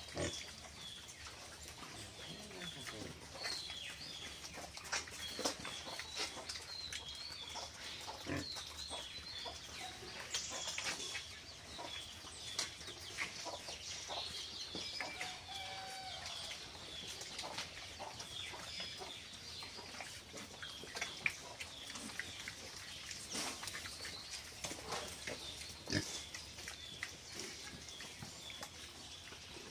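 Domestic pigs feeding from bowls: grunting, with many short wet clicks and knocks of chomping and bowl contact.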